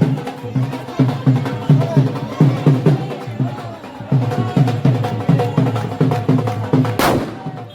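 Music with drums beating a steady rhythm, about three hits a second, with faint voices or instruments over it. A brief loud burst cuts across it near the end.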